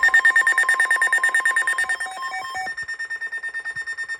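Weather radio alert alarm beeping rapidly, about eight to ten beeps a second, on a high pitch, signalling an incoming NOAA Weather Radio warning. A lower tone in the alarm stops about two and a half seconds in, while the beeping carries on.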